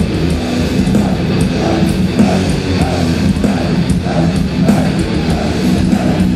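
Death metal band playing live: heavily distorted electric guitars chugging a repeating riff over bass and drums, loud and dense with no vocals.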